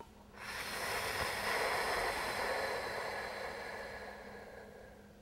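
A long, slow breath out: a soft hiss that swells for about a second and then fades away over the next three.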